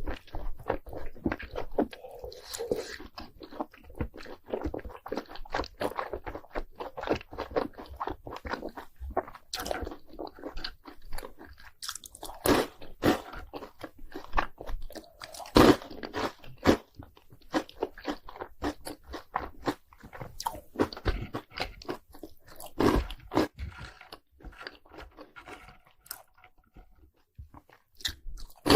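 Close-miked crunching and chewing of crispy fried cheese balls coated in crushed hot Cheetos, with irregular bites throughout and a few sharper, louder crunches around the middle.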